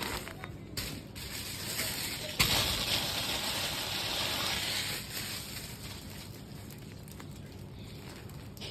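Cloth rustling as a heavily embroidered cotton saree is handled and smoothed by hand, with a sudden louder rustle about two and a half seconds in that fades after a few seconds.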